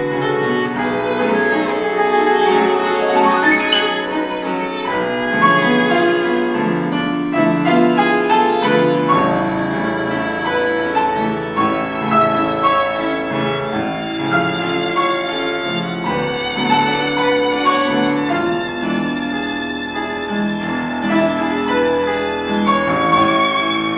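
Violin and grand piano playing a classical violin sonata movement live, the violin carrying the melody with vibrato over a moving piano accompaniment.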